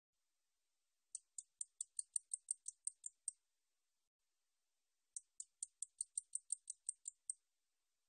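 A nalbejjangi katydid (bush cricket) calling: two bouts of about a dozen sharp, high ticks each, roughly five a second. The bouts are about two seconds apart.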